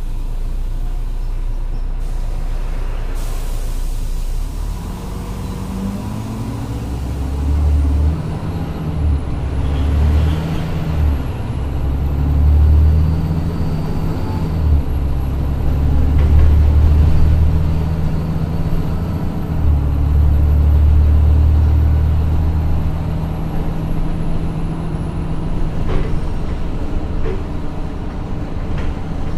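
Volvo city bus diesel engine heard from the driver's position inside the bus: steady idle, with a brief hiss about three seconds in, then the engine note rises about five seconds in as the bus pulls away. It runs loud and hard under acceleration with several brief dips and surges, then eases off near the end.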